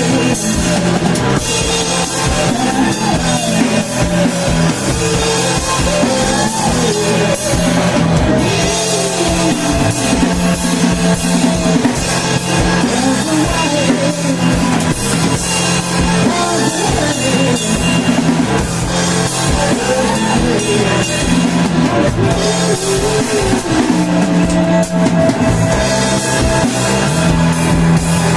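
Rock band playing live, with a drum kit driving a steady beat under bass and a wavering melody line.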